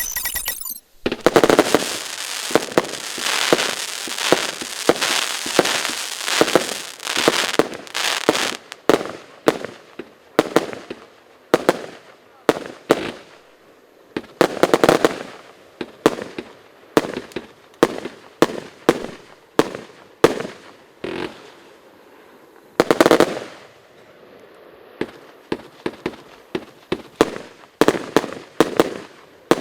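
Lesli 'Morse Code' professional fireworks compound cake firing. It starts with a dense, rapid barrage of shots, then fires single shots and loud bursting breaks about once a second, with a loud salvo past the middle and a quick run of bangs near the end.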